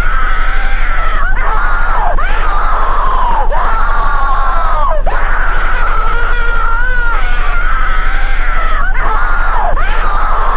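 Mock emergency-alert alarm: loud wavering tones that swoop sharply down in pitch several times, over a steady low hum.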